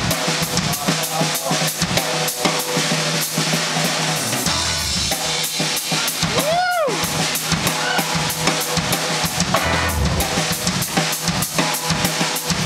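Live funk band playing an instrumental passage: busy drum kit with bass drum and snare over a steady bass line, with keyboards and guitars. About halfway through, a single pitched note swoops up and falls away.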